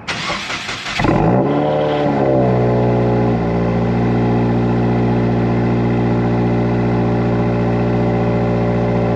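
A tuned Subaru engine is cranked on the starter and catches about a second in. It flares up in revs and comes back down, then drops into a steady idle at about three and a half seconds. The cold-start flare lasts only a moment before it sounds like it's been running for a while.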